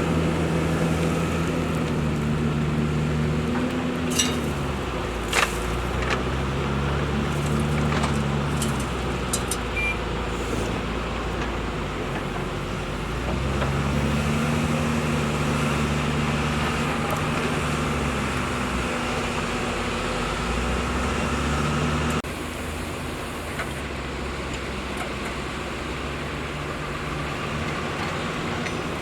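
Hyundai excavator's diesel engine running, its pitch rising and falling several times as it works under load, with a few sharp metallic knocks early on. About two-thirds of the way through the sound suddenly drops to a lower, steadier running note.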